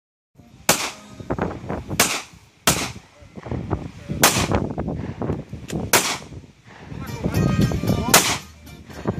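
Pistol fired six times at an uneven pace, each shot a sharp crack with a short tail of ringing after it.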